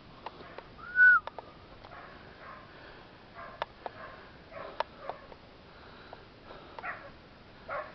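Hunting dogs barking a few short times in the distance, with one short whistle about a second in and scattered clicks.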